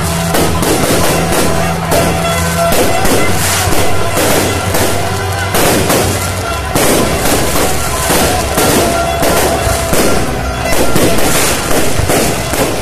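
Aerial fireworks bursting and crackling in quick succession, with many sharp bangs, over loud music with a steady bass line.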